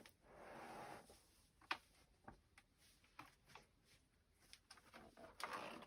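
Faint handling sounds of a deflated Segway miniPRO tire being worked by hand to break its bead off the wheel rim: brief soft rustles about a second in and near the end, and a sharp click with a few quieter ones between.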